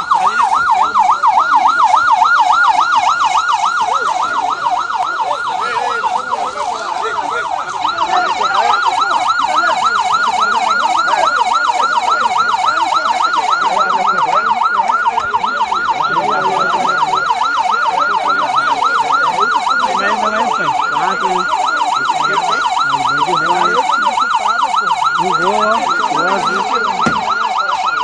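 Police car siren on a fast yelp, its pitch sweeping up and down about three times a second without pause.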